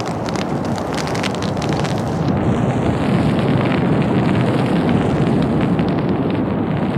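Prairie grass fire burning through dead, matted grass: a dense, steady rush of flames with sharp crackling. About two seconds in the crackling thins and the rush turns duller and a little louder.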